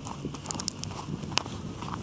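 Footsteps crunching in snow, several quick crunches about half a second in and another sharper one near the end, over a low steady rumble of wind on the microphone.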